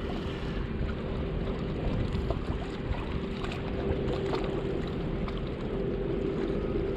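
Wind rumbling on the microphone and choppy water lapping against rocks, with a faint steady hum underneath.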